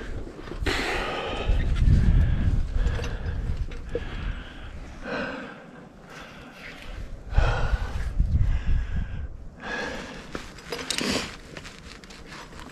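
Climbing rack of cams and carabiners clinking and scraping on the harness as the climber moves on sandstone, with the climber's hard breathing and rumbling wind on the microphone.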